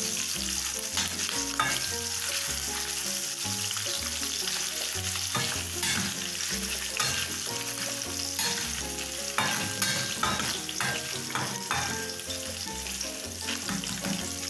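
Sliced beef sizzling in vegetable oil in a pan on low heat, with a utensil stirring it and scraping and knocking against the pan again and again.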